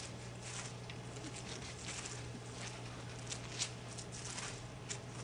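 Faint rustling and short papery flicks of Bible pages being turned, several in a row, over a steady low hum.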